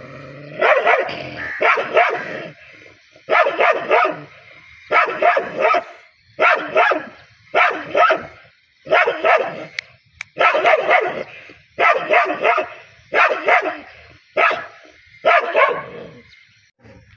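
Dog barking angrily, over and over in short clusters of barks about once every second or so, with brief pauses between clusters.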